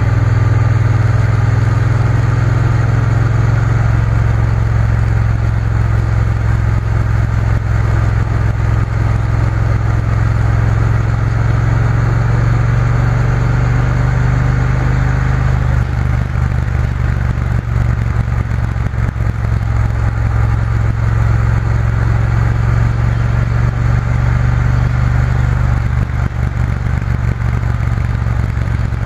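Triumph Bonneville T120 parallel-twin engine running steadily under way, its low note changing slightly about halfway through, with road noise underneath.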